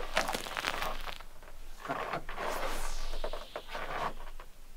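Hot water flung from a thermos into air at about −36 °C, flash-freezing into a cloud of ice fog: a hissing, crackling spray noise that swells and fades, with a stronger rush about two and a half seconds in.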